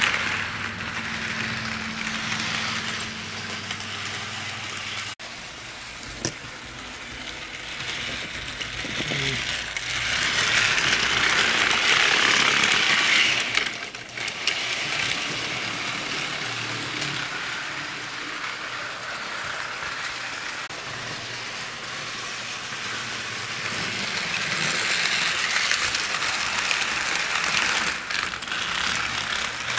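HO scale model train running on the layout's track: a steady rattle and whir of the small wheels on the rails and the geared motor. It grows louder as the cars pass close by, loudest from about ten to fourteen seconds in. A low hum in the first five seconds stops abruptly.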